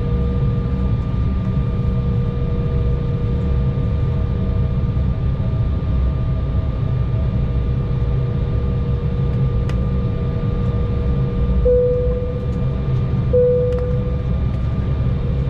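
Steady cabin noise inside a Fuji Dream Airlines Embraer jet: a low rumble of engines and air conditioning with a steady hum. Near the end come two brief, louder tones about a second and a half apart.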